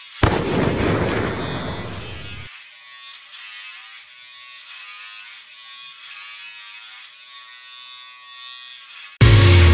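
A sudden loud boom that fades over about two seconds, then a faint, high, wavering buzz from electric hair clippers. Loud electronic music comes in near the end.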